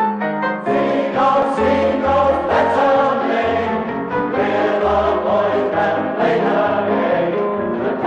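A football club song: a group of voices singing together over a band with a regular bass beat. It comes in about a second in, after a few piano notes.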